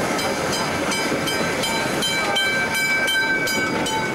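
Railway carriages rolling with steady wheel and running noise while a level-crossing bell rings at about four strikes a second, fading near the end. From about two seconds in, a high steady squeal, typical of wheel flanges on a curve, joins it.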